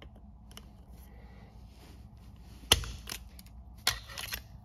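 Channel-lock pliers and a metal motor mounting ring clicking against a blower motor's end as the ring is twisted off: one sharp click about halfway through, then a few lighter clicks near the end.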